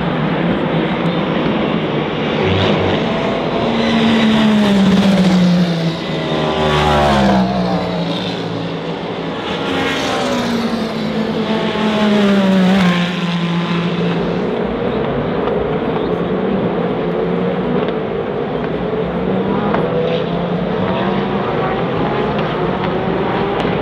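Race cars passing at speed one after another, each engine's pitch dropping as it goes by. The loudest passes come about four to seven seconds in and again about ten to thirteen seconds in, with further cars heard running throughout.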